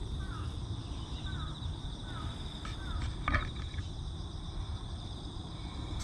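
Outdoor ambience: a steady high insect trill over a low rumble, with four short falling chirps in the first three seconds and a brief clatter a little past halfway.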